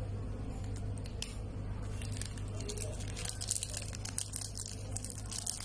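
Clear plastic wrapper of a modelling-clay stick crinkling and rustling as it is handled, in irregular little bursts over a steady low hum.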